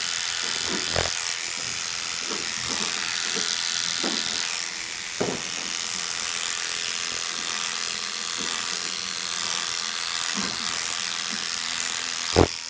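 Electric dog-grooming clipper with a number 10 blade running steadily, buzzing as it clips the coat on a Miniature Schnauzer's head. A few faint knocks, and a sharp knock near the end.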